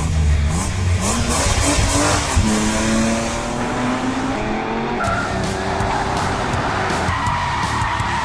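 Race car engine revving, its pitch rising and then holding, with tyre squeal.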